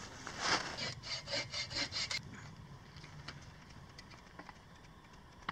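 A quick run of about seven rasping strokes, roughly four a second, like something being rubbed or sawn back and forth. After about two seconds it stops, leaving a few faint clicks.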